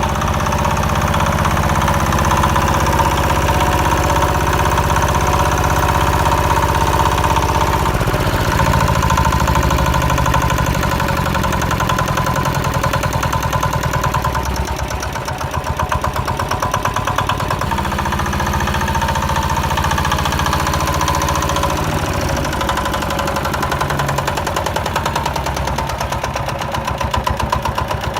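Small engine of a homemade mini tractor running steadily with an even firing rhythm, its note shifting a few times as the load changes.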